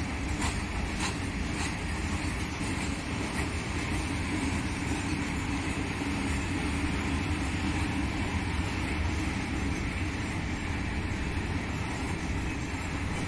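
Loaded open freight wagons rolling past on the rails: a steady rumble and rattle of wheels, with a couple of sharp clicks in the first second or so.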